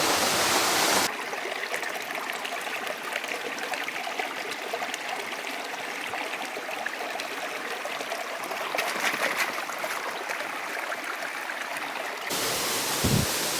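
Running water of a stream: a steady rush with small trickling ticks. The water sound changes abruptly about a second in and again near the end, where a brief low thump is heard.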